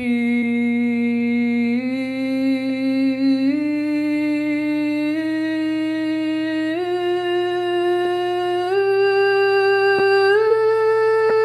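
A singer's voice holding the liver healing sound 'xu' in one unbroken breath, stepping up through a rising series of about seven tones, a step roughly every second and a half.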